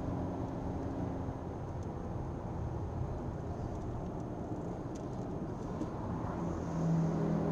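Car driven at speed, heard from inside the cabin: steady engine hum with tyre and road rumble. Near the end the engine note grows louder.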